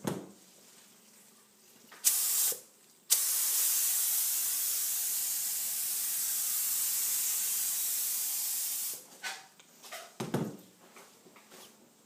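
Activator being sprayed over hydrographic film floating in a dip tank: a short burst of spray hiss, then a steady hiss lasting about six seconds, followed by a few light knocks.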